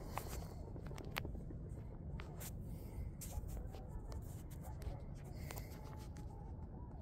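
Wind rumbling on the microphone with scattered faint clicks and crunches.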